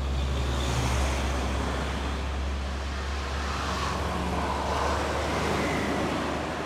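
Road traffic passing close: a heavy flatbed truck's diesel engine and tyres going by along with motorcycles, over a steady low engine drone. The sound swells slightly about a second in and again around five seconds in.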